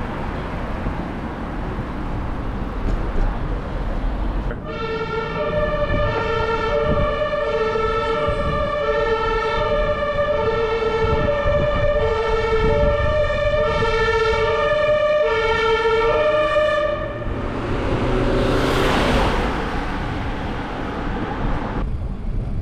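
Two-tone emergency vehicle siren, the German 'tatütata' kind, alternating steadily between a lower and a higher pitch for about twelve seconds before cutting off. A vehicle then rushes past, over steady wind and road noise from the moving bike.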